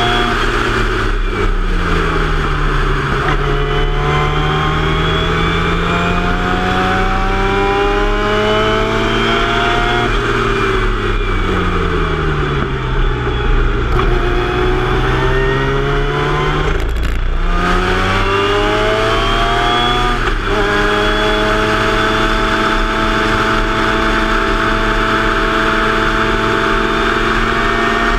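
Formula Mazda race car's rotary engine heard onboard, pulling hard through the gears. Its pitch falls as the car slows for a corner about ten seconds in, then climbs again with quick upshifts about seventeen and twenty seconds in, and rises slowly near the end, over rushing wind.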